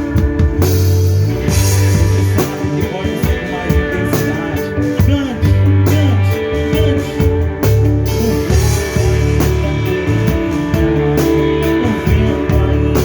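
Live band music led by electric guitar over bass and a drum kit, with cymbal hits throughout.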